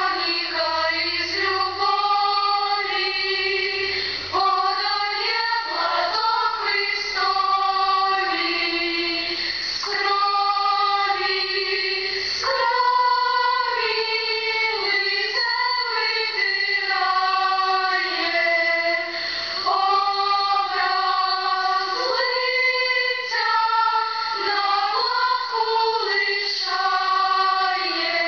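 A choir of children and teenage girls singing a slow melody in long held notes, several voices together.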